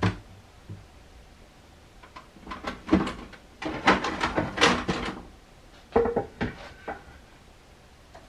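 Kitchen clatter from a cupboard being opened and shut and dishes being handled: a knock at the start, a run of clattering knocks for a couple of seconds a little after two seconds in, and a few more about six seconds in.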